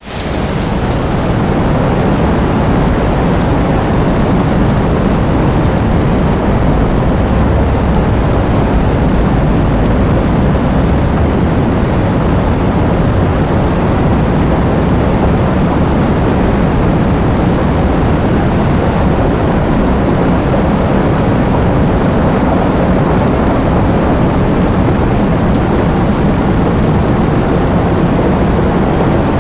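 Heavy rain falling steadily, a dense even wash of noise that is heaviest in the low end. It fades in over the first second.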